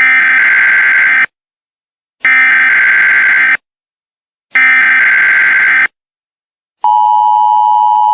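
Emergency Alert System header: three bursts of digital data tones, each about a second long with short gaps, sent to open an emergency alert. About seven seconds in, the steady two-tone EAS attention signal begins and holds.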